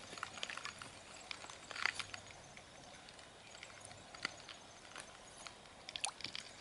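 Faint, scattered small clicks and taps, a few close together about two seconds in and again near the end.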